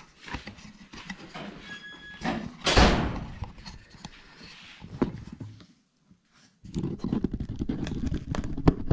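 Footsteps and handling knocks on a moving camera, with one heavy thunk about three seconds in, like a door shutting. There is a brief silence just past the middle, then more shuffling and knocking.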